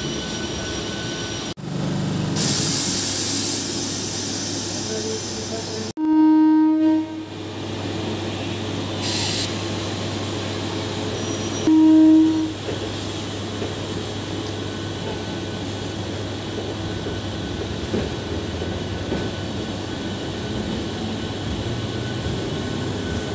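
MEMU electric passenger train running steadily, with two short horn blasts: the first about six seconds in, the second about twelve seconds in, each lasting under a second and louder than the running noise.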